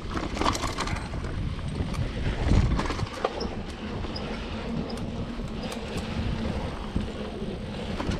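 Samebike LO26 electric folding mountain bike ridden over a sandy dirt trail: a steady tyre-and-wind rumble with frequent rattles and clicks from the bike over bumps, and one heavier knock about two and a half seconds in.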